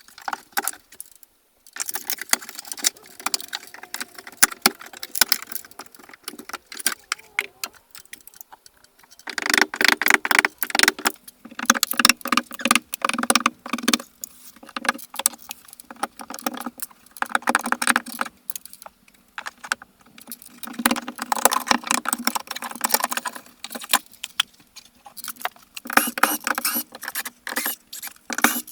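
Irregular clattering and rattling of tools and building materials being handled during renovation work, with light metallic jingling, in busy bouts broken by short pauses.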